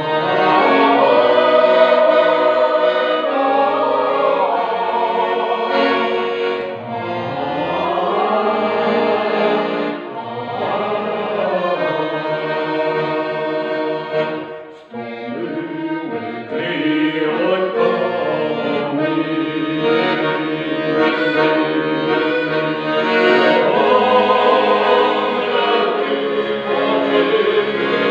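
Accordion playing a Ukrainian folk song, with a small choir of men and women singing along in long rising and falling phrases; the music dips briefly about fifteen seconds in.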